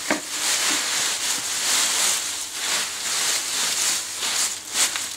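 Dry walnut leaves rustling in irregular surges as they are grabbed by hand and spread as mulch around the base of a young thuja.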